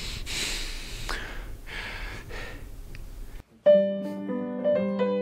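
A soft, noisy rushing sound, then, after a brief drop to silence about three and a half seconds in, a solo piano begins playing, its first note struck loudly and followed by a melody over low chords.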